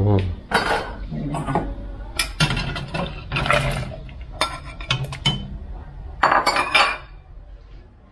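Kitchen utensils clinking and knocking against a pot and dishes, a run of about a dozen sharp clinks spread over several seconds, as pieces of potato and pumpkin are added to a pot of stock to boil.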